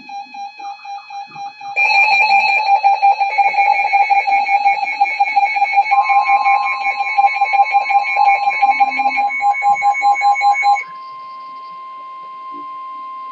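A rapidly pulsing, guitar-like music loop, joined about six seconds in by a long steady electronic alert tone. The music cuts off near eleven seconds in, and the steady Emergency Alert System attention tone carries on alone with a second, lower tone under it.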